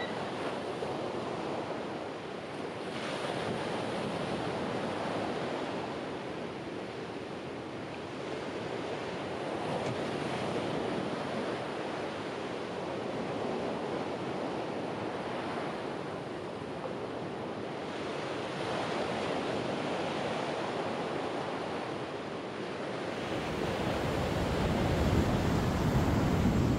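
Ocean surf washing onto the shore, swelling and fading with each wave. About 23 seconds in it gives way to a louder low rumble of wind on the microphone.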